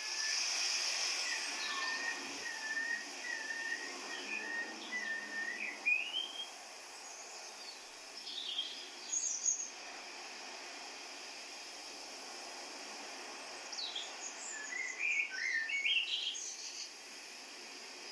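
Birds singing in three spells of quick, wavering chirps and whistles over a steady background hiss.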